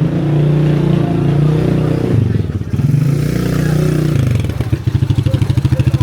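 A motorcycle engine running close by, swelling twice, then settling from about four seconds in into a rapid, even pulsing.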